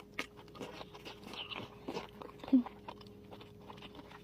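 Close-up mouth sounds of a person eating live, sticky tentacled seafood: wet chewing and smacking as many small scattered clicks. A short voice-like sound a little past halfway is the loudest moment.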